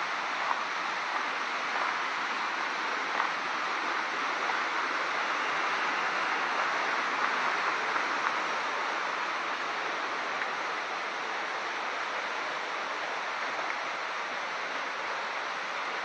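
Steady rush of fast-flowing river water, an even hiss with no breaks.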